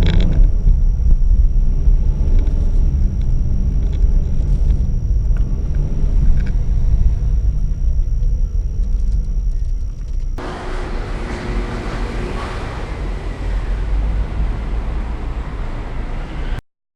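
Car engine running, heard from inside the cabin as a steady low rumble. About ten seconds in the sound changes abruptly to a different recording, and it cuts off just before the end.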